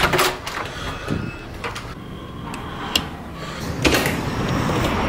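Doors being opened and shut: several latch clicks and knocks, with a louder clack near the end as the metal handle of a glass door is pushed open.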